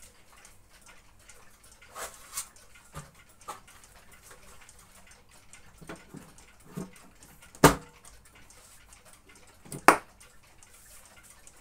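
Hard plastic knocks and clacks as the smoked plastic dust cover of an RFT Ziphona Rubin 523 record player is handled and set down over the deck. Several light knocks come first, then two sharp, loud clacks, one about two-thirds of the way through and one near the end.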